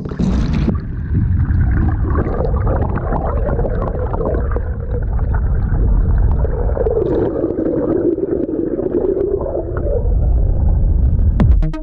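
Hose water rushing into a water balloon, heard from a camera submerged inside it: a muffled, low rushing and gurgling, with a wavering hum for a few seconds past the middle.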